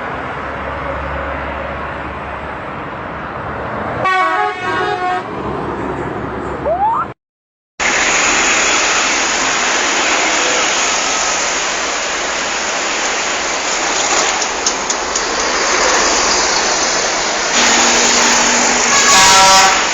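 An Indonesian bus's multi-tone telolet horn plays short musical toots over steady road and traffic noise. It sounds once about four seconds in and again, louder, near the end.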